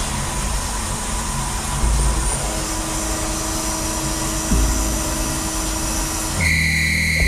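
CNC machining centre drilling stainless steel with a coated carbide drill in vibration-assisted deep-hole drilling: a steady hiss of coolant spray over the running machine, with a steady low hum joining a couple of seconds in. About a second before the end, steady music tones cut in abruptly.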